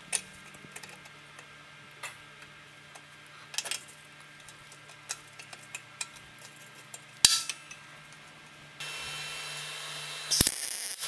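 Steel parts being handled and a locking C-clamp set on a bracket on the motorcycle frame: scattered metal clicks and knocks, with a loud clank about seven seconds in. Near the end a steady hiss starts, then a short burst of sharp cracks as the bracket is tack-welded.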